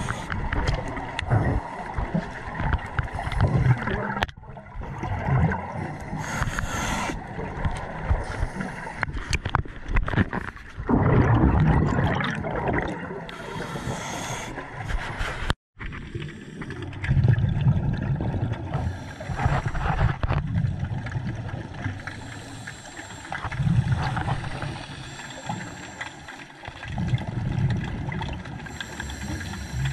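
Scuba diver breathing through a regulator underwater: a hiss on each inhalation alternating every few seconds with a low gurgling rumble of exhaled bubbles.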